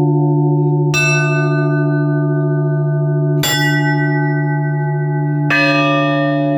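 Church bells struck one at a time, a new stroke about every two to two and a half seconds, each with a different set of ringing tones over the steady hum of the larger bells still sounding. This is the bell ringing of an Orthodox funeral service.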